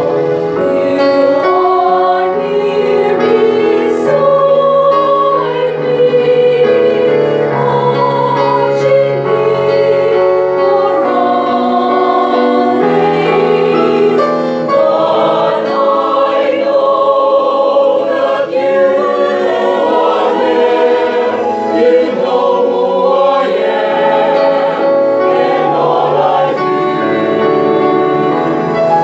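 A choir singing in sustained, blended parts with electronic keyboard accompaniment, changing chords every second or two without a pause.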